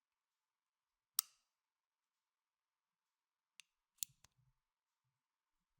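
Space heater making sharp, isolated clicks: one clear click about a second in, then three fainter ones close together later on.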